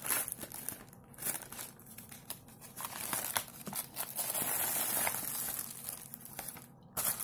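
Crinkling and rustling of a plastic-lined paper mailer being torn open by hand and the plastic postal bag inside being pulled out, in short irregular bursts with a brief pause near the end.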